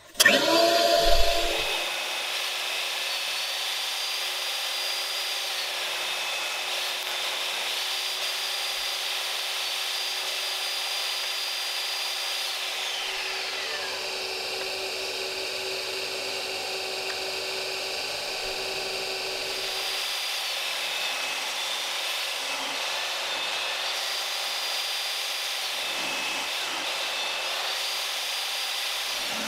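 Craftsman XSP 16-gallon shop vacuum switched on, surging up at the start and then running steadily, together with a table saw running and cutting a hardwood board, with a high whine that comes and goes.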